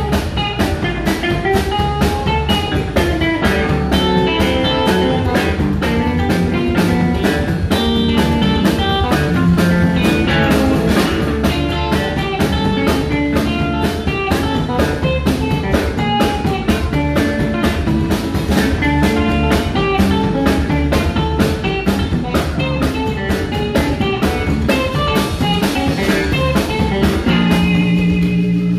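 Live band playing: electric guitar leading over an upright double bass and a drum kit, with a steady, fast beat.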